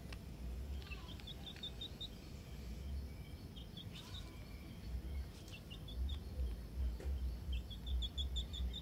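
A bird calling in quick runs of short, high, evenly spaced notes, four times, over a patchy low rumble that grows louder in the second half.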